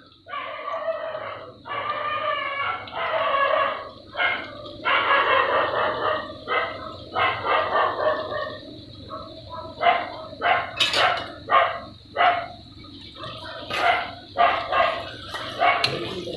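A dog barking and whining repeatedly, each call lasting up to about a second, over onions sizzling in oil in an aluminium pressure cooker. A few sharp clicks of a spoon against the pot come in the second half.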